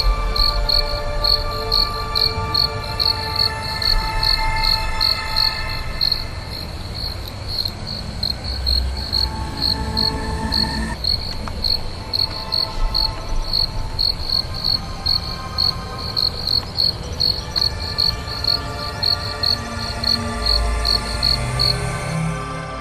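Cricket chirping steadily at a fixed high pitch, about two chirps a second, over held music notes.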